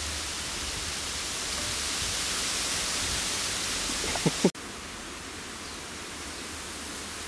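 Steady outdoor wind noise, a hiss with a low rumble. Two short squeaks sound about four seconds in, then the hiss drops abruptly to a quieter level.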